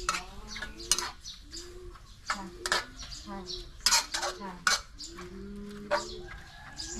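Metal utensils clinking and knocking against a cooking pot in sharp, irregular strikes. Behind them, short low animal calls repeat every second or so.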